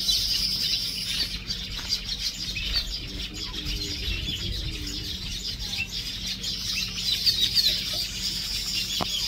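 Many small birds chirping and twittering together without a break, over a steady low hum.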